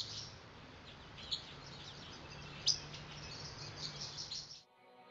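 Small birds chirping, with scattered short high calls over faint outdoor ambience and a low steady hum. It cuts off suddenly about four and a half seconds in, and soft music begins to fade in.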